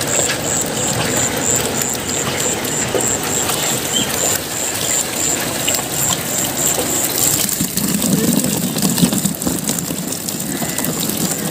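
Water splashing and streaming off a wire-mesh fish trap as it is hauled out, then a mass of live fish flapping and slapping as they are tipped onto a wooden boat's floor. A high pulsing note, about three pulses a second, runs under it.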